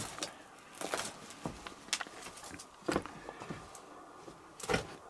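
Irregular footsteps and scuffs on rocky ground, with a few sharper knocks, the loudest about three seconds in and again near the end.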